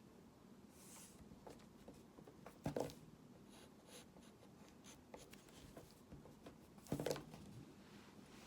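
Faint scratchy strokes of drawing by hand, a pen or pencil moving across the drawing surface, with two louder knocks, about a third of the way in and near the end.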